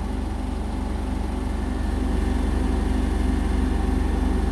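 Indesit BWE101683 washing machine in its final spin with the drum slightly unbalanced. It makes a deep, fast-pulsing roar like a train that slowly grows louder as the spin speeds up towards 1600 rpm.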